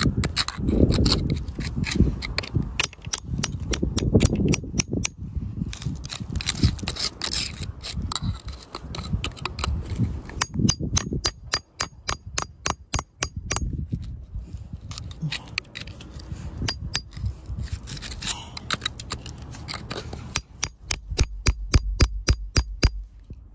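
A thin metal pick digging and scraping into dry, crumbly soil and grit around a crystal: a busy run of sharp clicks and ticks over crunching dirt, in quicker rattling bursts near the middle and near the end.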